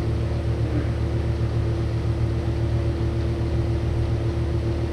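A steady low machine hum with one constant tone above it, unchanging throughout.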